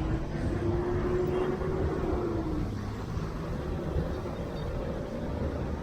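Steady low rumble of road traffic, with a faint engine hum that swells and fades over the first few seconds.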